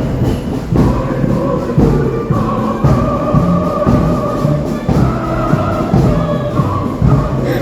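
Music with singing voices, a long held note through the middle and a beat of regular strokes.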